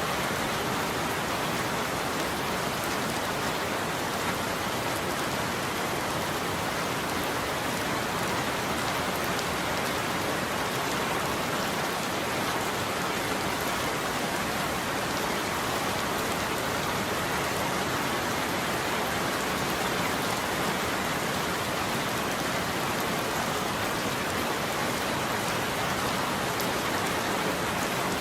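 Rain falling steadily on a roof, an even, unbroken hiss.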